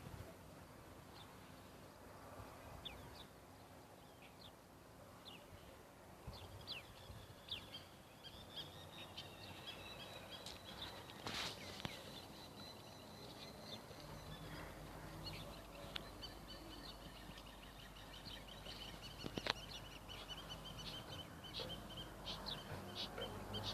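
Birds chirping: many short, high calls and quick trills, faint over steady background noise.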